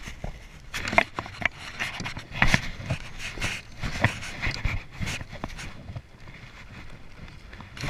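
Irregular knocks, thumps and rubbing of handling aboard a plastic fishing kayak, some from an arm brushing against the camera. The loudest knocks come about one and two and a half seconds in.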